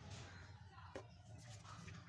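Near silence: a faint steady low hum with a few soft clicks, one sharper about a second in.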